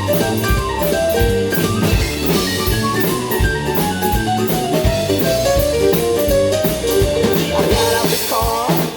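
Instrumental break of a rockabilly song: guitar playing a melody over a steady drum-kit beat.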